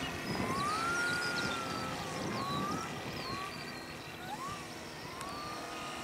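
Saito FG-60R3 three-cylinder 60cc petrol engine of a large radio-controlled model plane running in flight, fading just after a close pass. A series of whistled pitch glides, each rising and falling, sounds over the engine, along with short high chirps.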